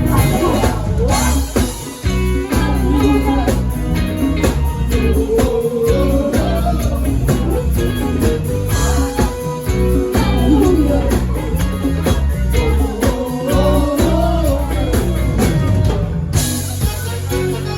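Band music with a steady beat, heavy bass and guitar, under a gliding lead melody.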